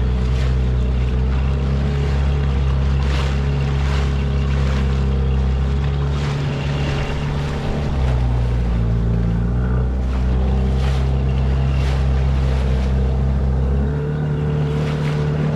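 Outboard motor pushing a Honwave T38IE inflatable boat along at steady speed, its note dipping and rising slightly a couple of times as the throttle or load changes. Water hisses and slaps against the hull now and then.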